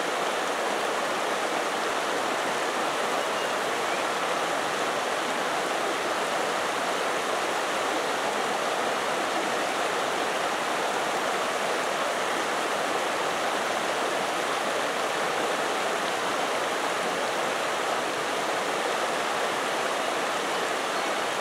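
Shallow rocky creek rushing over a riffle: a steady, even rush of water.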